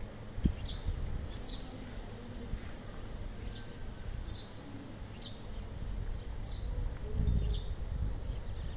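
Birds chirping, short downward-sweeping chirps repeated every second or so, over a low rumble.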